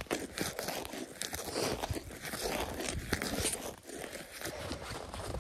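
Boots crunching in packed snow and a leather mitten rustling against a wooden ice-fishing tip-up close to the microphone: a dense, irregular run of crunches and rustles.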